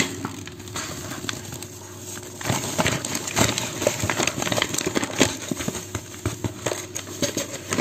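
Light crackling and small taps of a cup scooping flour and tipping it into a plastic mixing bowl. The sounds are thickest from about two and a half seconds in.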